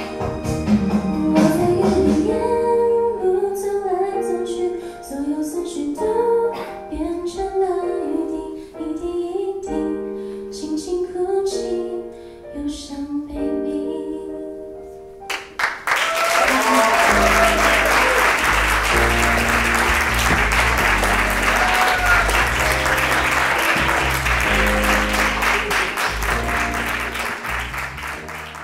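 Live song ending: a woman singing over accompanying instruments. About halfway through, audience applause breaks out over the closing chords and keeps going until the sound fades out near the end.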